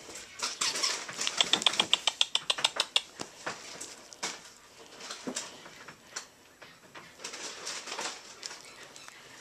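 Play noises of a Yorkshire terrier puppy mouthing and nipping at a hand on a couch: rustles and scattered clicks, with a fast run of sharp, squeaky clicks, about ten a second, from about one to three seconds in.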